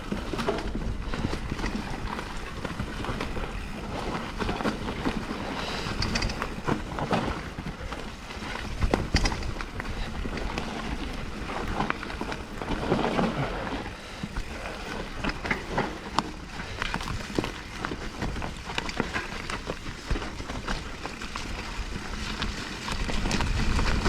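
Mountain bike riding down a wet, muddy trail: steady tyre and trail noise with a rapid clatter of knocks and rattles from the bike over roots and bumps, and a low rumble.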